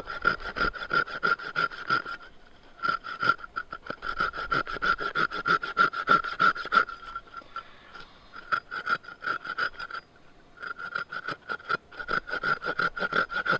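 Folding pruning saw cutting a shallow kerf around a wooden log, quick back-and-forth strokes rasping through the wood with a steady high ring under them, scoring a stop cut. The sawing stops briefly a few times as the log is turned.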